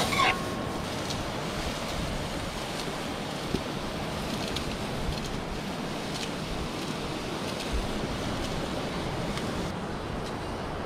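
Curry lobster sizzling and simmering in an aluminium pot on a gas grill: a steady hiss with a few faint pops, and a brief scrape of the spoon on the pot at the very start.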